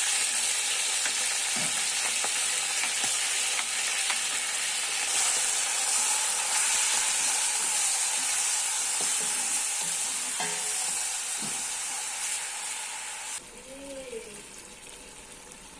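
Food sizzling and frying in a hot pan, a steady hiss with faint taps of a utensil stirring it. Near the end the sizzle drops suddenly to a much quieter level.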